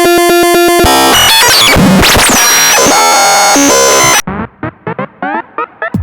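Loud electronic intro music of synthesizer tones and glitchy sweeps that cuts off about four seconds in, giving way to a quieter run of short rising synth blips, about four a second.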